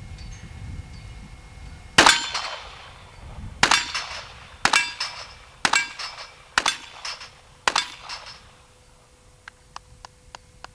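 Six shots from a .38 revolver, fired about a second apart, each followed by a metallic ringing. A few light clicks follow near the end.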